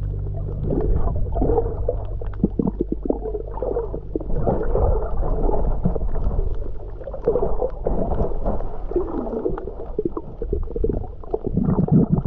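Underwater water noise heard through the camera's waterproof housing: irregular gurgling, sloshing and bubbling as the camera moves through the water just below the surface.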